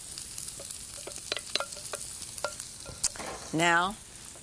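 Cooked onions being scraped and tipped out of a glass bowl into a casserole: soft scraping with scattered light clicks and taps, and one sharper click about three seconds in.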